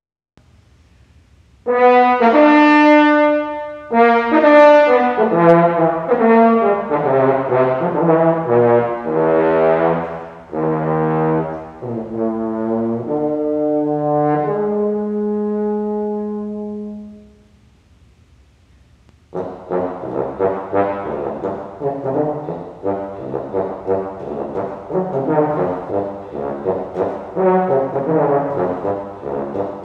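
Unaccompanied French horn solo. Loud held notes begin about two seconds in, then shorter notes that settle onto a long low note. After a short pause, a fast run of quick notes starts about two-thirds of the way through.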